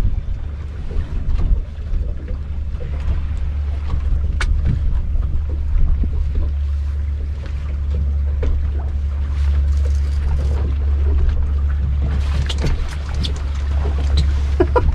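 Strong tropical-storm wind rumbling steadily on the microphone aboard a small fishing boat, with scattered light knocks and clicks.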